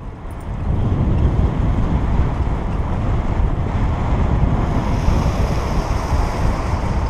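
Wind buffeting the microphone of a camera on a moving bicycle: a steady rumbling rush that grows louder about a second in.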